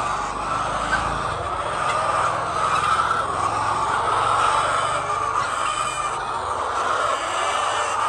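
A large flock of laying hens clucking together in a steady, dense din, with a low rumble underneath for most of the time.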